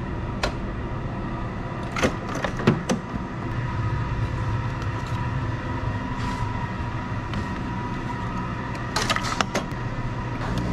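Clicks and knocks of a Keurig commercial pod coffee brewer being loaded with a cup and a K-cup pod: a single click early, a cluster about two seconds in and another near the end. Under them a steady hum with a faint high whine.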